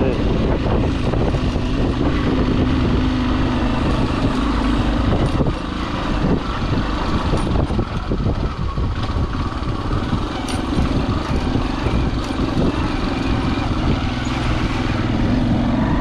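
Motorcycle engine running under way on a dirt track, with heavy wind rumble on the microphone. The engine note is steady for the first few seconds, then eases and gets quieter for a few seconds near the middle.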